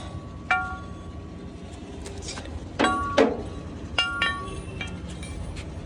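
Metal clinks and clanks, a handful of separate strikes each with a short ringing tone, from a fabricated steel plate being handled and test-fitted against the tractor. A steady low hum runs underneath.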